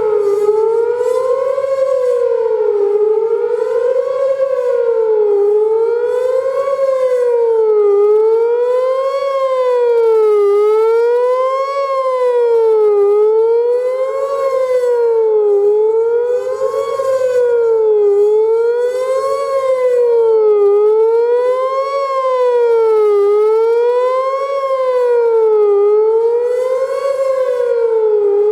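Whelen WPS-4004 electronic outdoor warning siren sounding its fast wail: a loud tone sliding up and down in pitch about once every two seconds, with strong echoes coming back off the surroundings.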